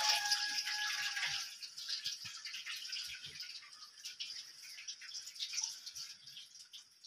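Rinse water being poured off washed rice from a steel bowl into a sink, splashing most in the first second and a half and then thinning to a trickle, with a few light clinks.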